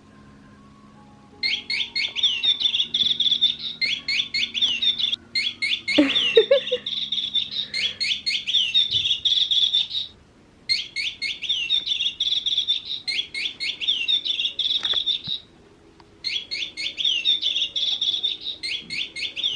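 Electronic chirping from a bird-shaped cat toy: rapid runs of high, tweeting bird calls in bursts a second or two long, breaking off briefly twice.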